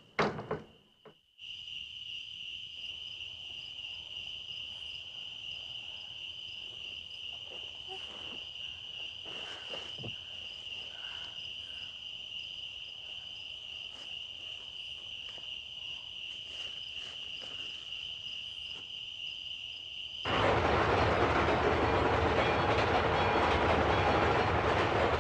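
Crickets chirping in a steady, high-pitched night chorus, with a few faint rustles. About twenty seconds in, the loud, steady rumble of an approaching motor vehicle cuts in suddenly and drowns them out.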